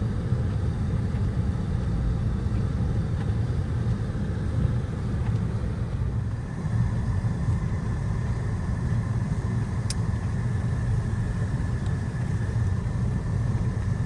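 Steady low rumble inside a car's cabin as it drives through deep snow: engine and tyres. A faint steady whine joins about six seconds in, and a single click sounds near ten seconds.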